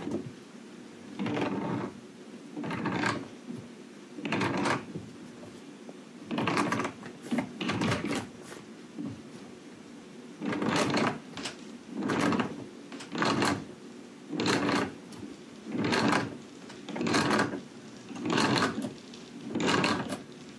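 Nut and washer being cranked down a stainless steel eye bolt into a wooden joist, one short grinding rasp at each turn of the tool, about one every second and a half.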